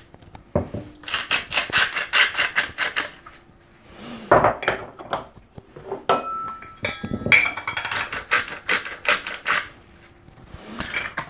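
Salt and pepper mills being twisted, making rapid grinding clicks in two runs, one about a second in and one in the second half. Between them come a couple of knocks and a short metallic clink that rings briefly.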